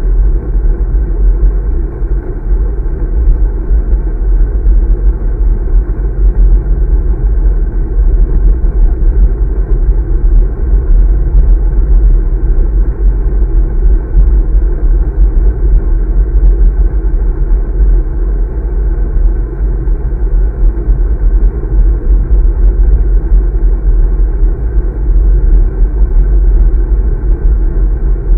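Loud, steady low rumble of wind buffeting the microphone of a handlebar-mounted camera on a moving road bike.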